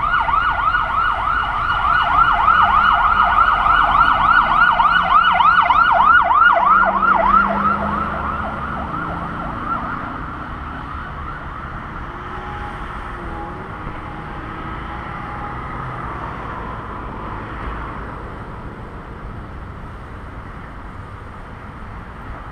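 Emergency vehicle siren sounding in a rapid yelp, about four rises and falls a second. It is loud for the first seven seconds or so, then fades away, leaving a steady low background hum.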